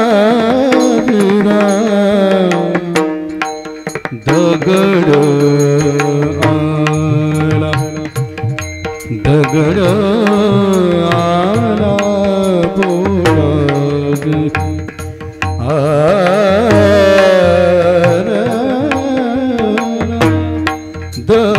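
Devotional bhajan singing: a voice holding long, wavering melismatic notes over tabla and a steady instrumental accompaniment.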